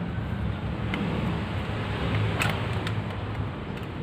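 A steady low mechanical hum, with a few light clicks of a steel screwdriver against a motorcycle carburettor body being taken apart, the sharpest about two and a half seconds in.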